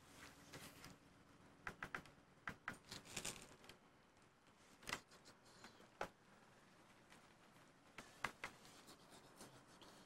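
Quiet background with a faint steady hum, broken by scattered short clicks and a brief rustle, the clicks coming in small clusters about two, three and eight seconds in.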